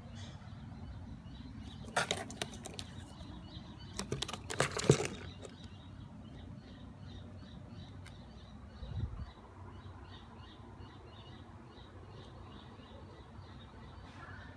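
A parrot moving and scrabbling in a cardboard box: bursts of scratchy rustling and clicks about two seconds in and again around four to five seconds in, the louder one, then a dull thump a little after nine seconds.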